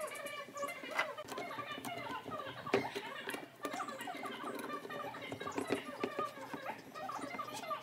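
Steel bar clamps being slid and tightened onto a glued wooden frame, with a few sharp clicks, the loudest about two and a half seconds in. Behind them runs a busy chatter of small squeaky chirps.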